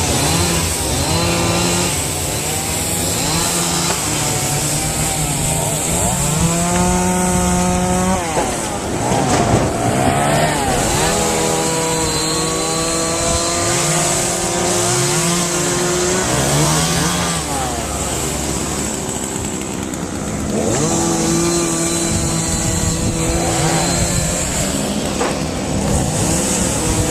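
Chainsaws revving up and down repeatedly over the steady running of other engines during tornado debris cleanup.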